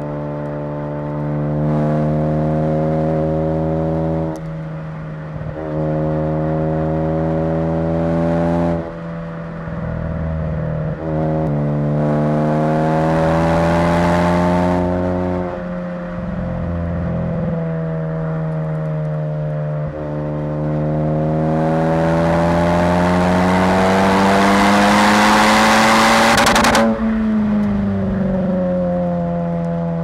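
Turbocharged 2.0 L EcoBoost four-cylinder of a big-turbo Ford Focus ST pulling hard through the gears. Its pitch climbs steadily in each gear and drops at several upshifts, and a loud rushing hiss builds with the revs on the two longest pulls. Near the end the climb cuts off suddenly as the throttle is lifted, and the revs fall away.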